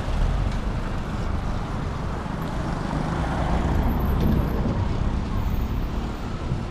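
Street traffic: motor vehicles driving by with a steady low rumble that swells a little past the middle.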